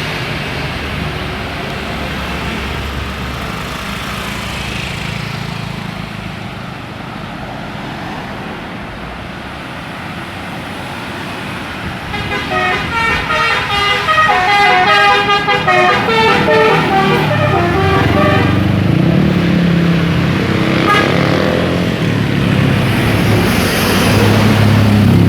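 Bus engines running in road traffic. About twelve seconds in, a Basuri telolet bus horn plays its rapid multi-note melody for several seconds, and engine rumble grows louder near the end as a bus comes close.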